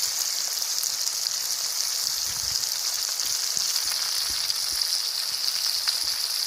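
Chopped onion, scallion, thyme and tomato seasoning sizzling steadily in a hot pot, with small scattered crackles.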